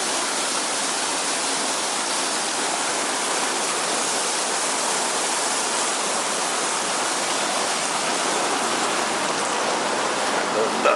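Heavy rain pouring down in a steady, even hiss, a downpour.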